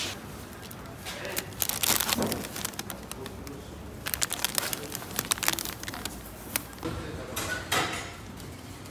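Crinkling and sharp clicks of something being handled, in two clusters about two seconds in and again between four and five and a half seconds in, over a low room hum.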